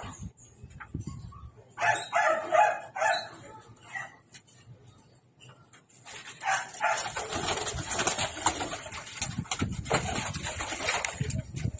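A few short, loud dog barks about two seconds in. From about six seconds on comes the dense clatter of many wings as a flock of young racing pigeons bursts out of the loft on release.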